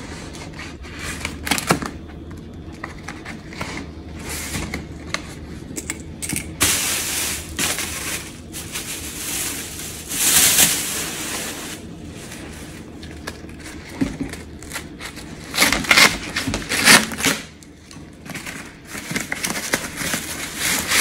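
Cardboard packaging being handled and pulled apart as a wrapped tabletop is unpacked: irregular scraping, rustling and crackling in several bursts, the loudest about ten seconds in and again near the end.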